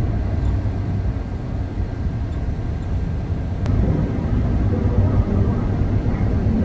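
Steady rushing rumble and hiss of spray painting: compressed air through a paint spray gun together with the paint booth's airflow, with a brief click partway through.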